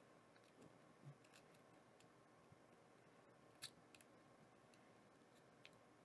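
Near silence broken by a few faint clicks, the loudest about three and a half seconds in. A pry tool is being worked around the edge of a second-generation 8GB Zune's case, and its clips are snapping loose.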